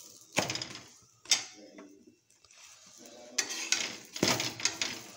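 Metal spatula knocking and scraping against a tawa while a paratha is turned and lifted off the griddle: a sharp clank about a second in, then a quick run of scrapes and knocks near the end.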